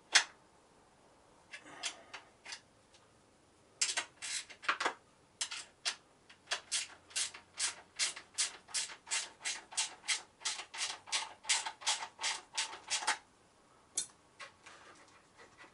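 Ratchet wrench undoing a bolt on a motorcycle's air duct: a quick, even run of clicks, about three or four a second, after a few single clicks, stopping about two seconds before the end.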